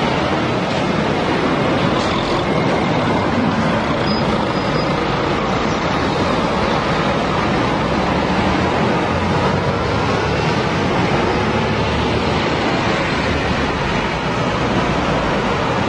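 Steady, dense road traffic noise: a constant wash of vehicles, with engine tones faintly rising and falling as they pass.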